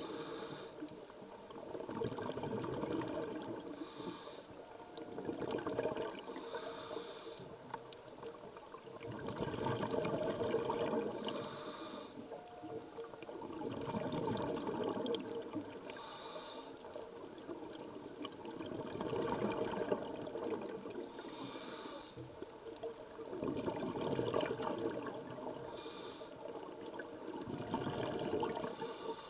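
Scuba regulator breathing underwater. Each inhale brings a short hiss, and each exhale a longer rush of bubbles, repeating in a slow rhythm about every five seconds.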